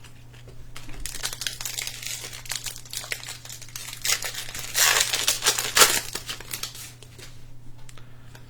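Plastic wrapper of a Panini Mosaic Holiday trading card pack crinkling as it is torn open and crumpled, starting about a second in and loudest about five seconds in before dying away.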